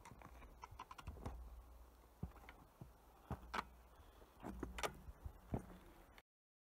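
Faint handling noise from a camera being reached for and touched: scattered clicks and knocks, a few louder ones in the second half, with clothing rustle and a low wind rumble on the microphone. The sound cuts off abruptly a little before the end.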